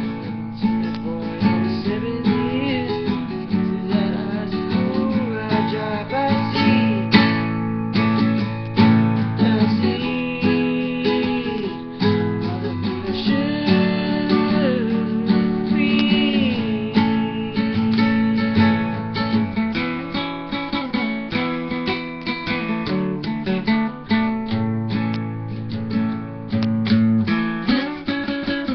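Nylon-string classical guitar strummed in a steady rhythm, chords ringing with quick picked attacks, an instrumental passage without singing.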